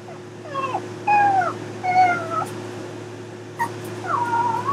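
Chihuahua whining: about five short, high cries that bend up and down in pitch, the last one running on past the end. The whines come as the other dog chews the chew stick, a sign of the Chihuahua wanting it.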